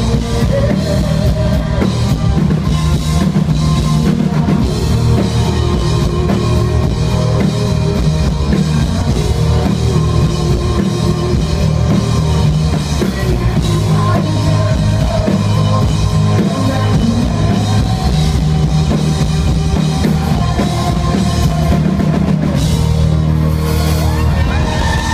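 Live rock band playing loud, with electric guitar over a drum kit.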